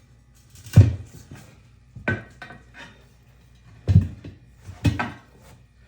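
Metal tire-mounting tool knocking and clanking against the wheel rim as a racing tire's bead is levered on by hand: about five separate knocks with a short metallic rattle, roughly a second apart.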